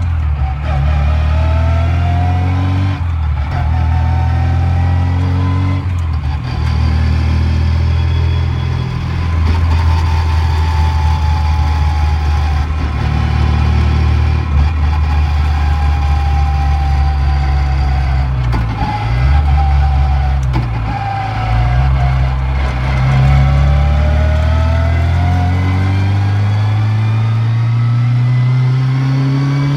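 Lada with its stock engine and a straight-cut sliding-gear gearbox, heard from the cabin, pulling up through two quick gear changes in the first seven seconds. The gears whine along with the engine: the whine falls slowly as the car eases off in the middle and rises again as it accelerates near the end.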